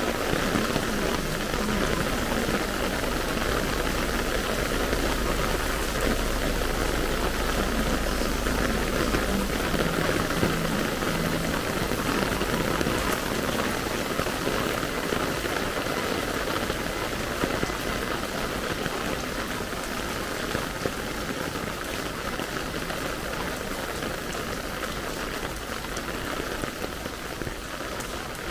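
Heavy rain falling steadily on pavement and street surfaces, a dense even hiss and patter. A low rumble sits underneath for roughly the first ten seconds.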